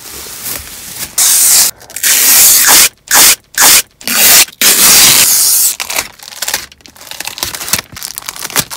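Protective tape and plastic film being peeled off car interior trim: about six loud ripping pulls, each under a second, then softer crackling of the loose plastic.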